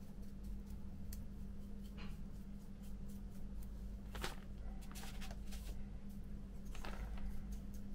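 Faint handling sounds at a hobby bench: a few short rustles and light taps as small plastic model parts and a paintbrush are handled and set down on newspaper, the loudest about four and seven seconds in, over a steady low hum.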